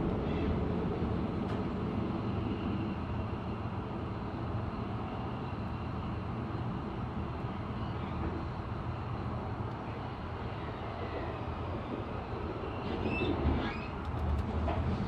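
Interior running noise of a Swiss S-Bahn commuter train in motion: a steady rumble of wheels on the rails heard inside the carriage. About thirteen seconds in come a brief high squeal and a few clicks.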